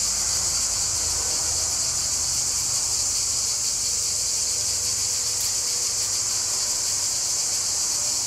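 Dense chorus of cicadas buzzing steadily, an even high hiss with no breaks, over a low rumble.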